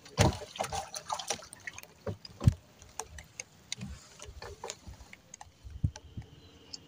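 Scattered knocks and clicks with a few heavier thumps: gear and bodies shifting against the hull of a small fishing boat.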